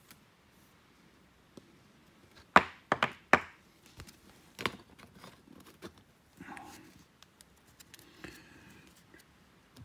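A stack of baseball cards being handled: a quick run of sharp taps and knocks about two and a half seconds in, another a second later, then softer rustling and sliding of the cards.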